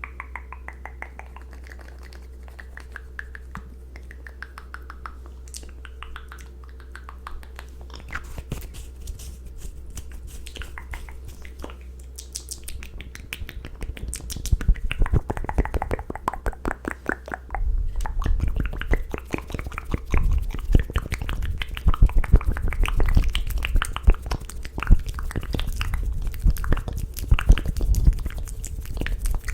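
Close-miked ASMR mouth sounds: rapid wet clicks and smacks of the lips and tongue. They grow louder and denser about halfway through.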